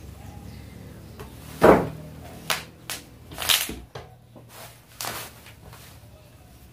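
Sissy squat machine being stepped onto and handled: a handful of sharp knocks and clicks from its metal frame and padding, the loudest about a second and a half in.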